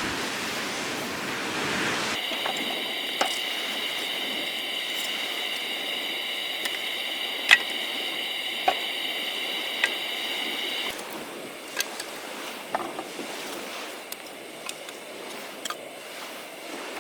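Gas torch burner hissing steadily as it is played on firewood to light it; it starts about two seconds in and cuts off suddenly after about nine seconds. Sharp pops of the heated wood come throughout and continue once the torch is off.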